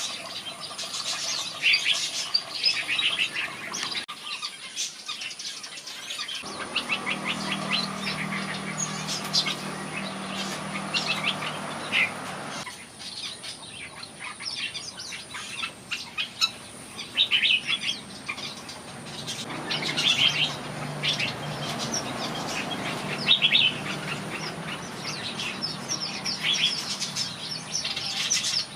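Red-whiskered bulbuls chirping and singing, with quick repeated notes throughout. A low steady hum comes in about a quarter of the way through, stops near the middle, and returns later.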